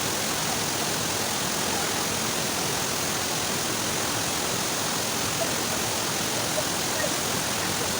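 A waterfall's falling water, a steady, even rushing.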